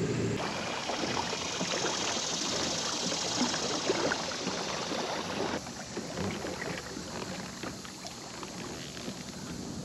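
Water swishing and trickling along the hull of an Old Town PDL 120 pedal-drive kayak as it moves up a creek, with many small splashes and crackles. A high hiss drops away a little over halfway through.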